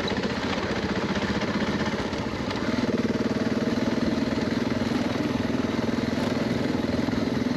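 Dual-sport motorcycle engine running while riding, its note stepping up a little about three seconds in and then holding steady.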